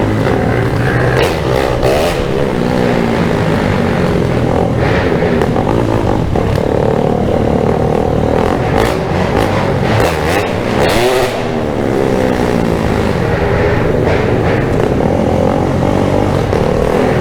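Motorcycle engine running while being ridden over rough dirt trails, its revs rising and falling with the throttle, with a few knocks from the rough ground.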